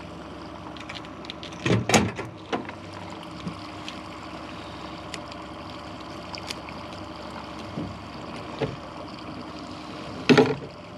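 Steady hum of a boat's outboard motor running at trolling speed, with a few knocks and clatters of fishing gear on the boat: a loud one about two seconds in, a lighter one just after, and another near the end.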